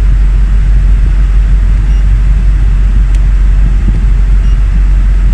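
Steady, loud low rumble of the air conditioning blowing from a dashboard vent in a Toyota Tarago van's cabin, with the engine running to drive the compressor.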